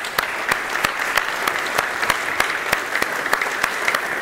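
Audience applauding steadily, with single sharper claps close by about three times a second.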